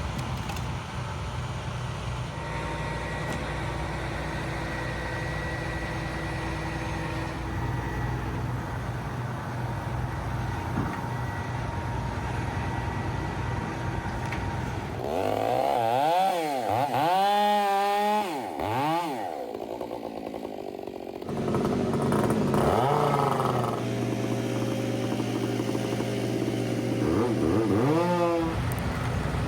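A chainsaw revving up and down in quick surges for a few seconds in the middle and again near the end, over the steady drone of a large engine running.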